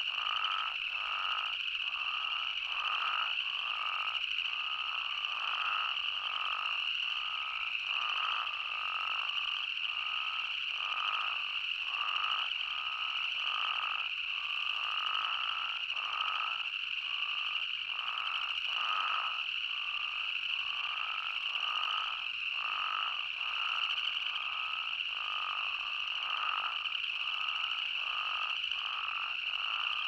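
A dense chorus of spadefoot toads calling, many overlapping calls repeating about once or twice a second over a steady high-pitched hum.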